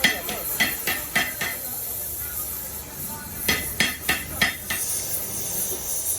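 Hammer blows on metal with a ringing clang: two quick runs of about five strikes each, the second starting about three and a half seconds in. A steady hiss runs underneath and grows louder near the end.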